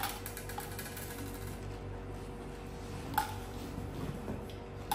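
Quiet room tone with a steady low hum, broken by two brief light clicks: one about three seconds in and one at the end.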